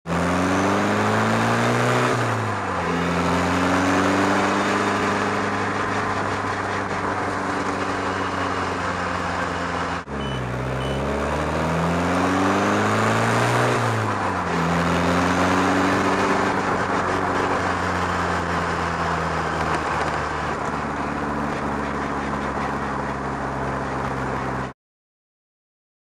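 Puma Clubman kit car's engine heard from the open cockpit while driving, with wind and road noise. Its note climbs, drops at an upshift, then holds steady at a cruise. Just after ten seconds the sound jumps to another stretch where it climbs and shifts up again before cruising, and it cuts off suddenly near the end.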